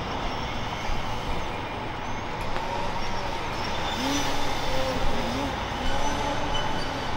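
Brushless electric motor and propeller of an F3P indoor aerobatic model plane whining in flight, its pitch rising and falling several times with the throttle, over a steady rushing noise.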